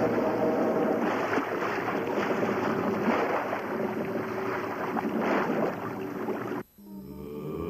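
Steady rushing noise of sea surf and wind. It cuts off abruptly near the end, and slide guitar music comes in.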